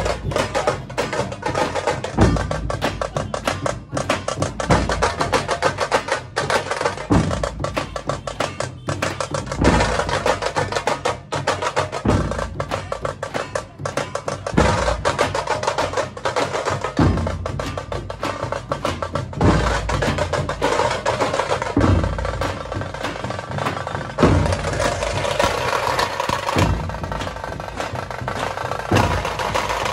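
Dhol-tasha troupe drumming: a fast, unbroken roll of sharp tasha strokes over deep dhol beats that land about every two and a half seconds.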